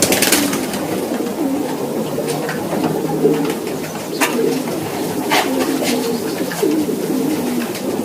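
Many racing pigeons cooing together in a continuous overlapping murmur, with a few sharp clicks.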